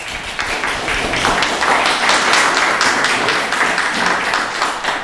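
Audience applause: many hands clapping, building over the first second or two and tapering off near the end.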